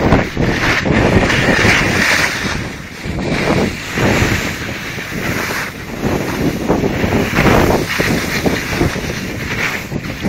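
Wind buffeting a cell phone's microphone over the hiss and scrape of snowblades sliding and turning through snow. The noise surges and fades every second or two.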